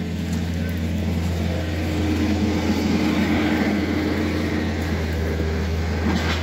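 Excavator's diesel engine running steadily, a low even drone that gets a little louder about two seconds in.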